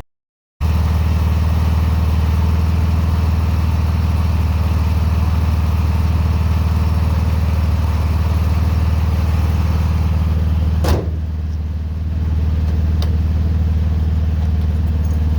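BMW E46 engine idling steadily with its new belt idler pulley and tensioner fitted. It starts abruptly half a second in, and there is a single click about eleven seconds in.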